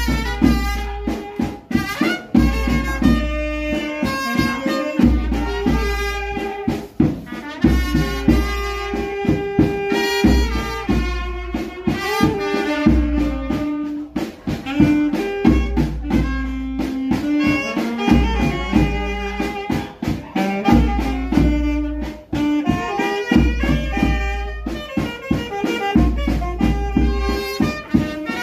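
Instrumental music: a sustained melody line over a steady beat, with a low bass pulse about every two seconds.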